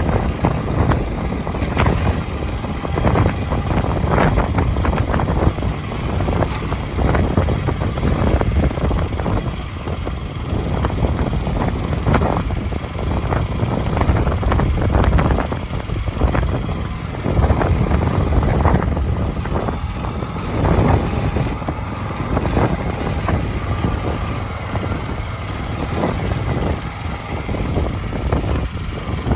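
Ants M10E micro excavator running, its small engine going steadily with loudness that rises and falls, and many short metallic knocks and clanks throughout.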